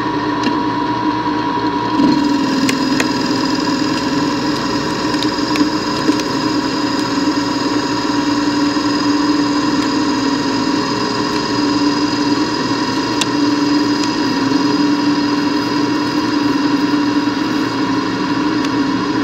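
Manual lathe running with a steady hum and whine from its spindle drive while a facing tool cuts across the face of a spinning round workpiece, throwing stringy chips. The cutting hiss comes in about two seconds in, with a few light ticks along the way.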